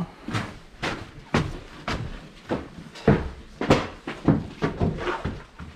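A string of sharp, hollow knocks and clunks, roughly two a second, like a door being worked or feet on a hollow wooden floor.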